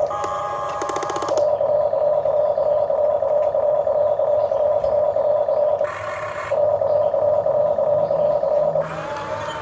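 Huina 1550 RC excavator's small electric motors whining steadily at one pitch. A rattly stretch comes in the first second, a short break at about six seconds, and a quieter tone near the end as the motors change function.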